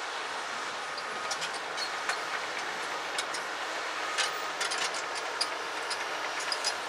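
Komatsu PC200LC hydraulic excavator running as it travels on its steel crawler tracks: a steady machine noise with irregular sharp metallic clicks and clanks from the track links.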